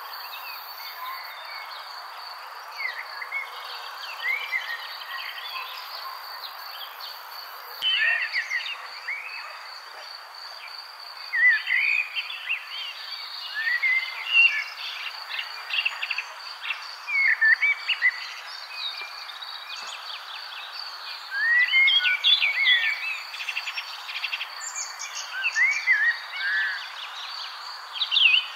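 A steady, high cricket trill with birds chirping over it in short rising and falling calls, the chirps growing busier about a third of the way in.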